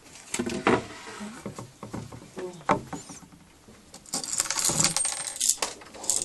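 Wooden cabinet panels knocking and scraping as they are handled and turned over during flat-pack assembly, with a few sharp clacks and a light metallic clink near the end.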